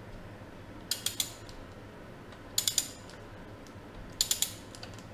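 Socket wrench ratchet clicking in three short strokes of about three clicks each, tightening the bottom bolt of a motorcycle fork leg.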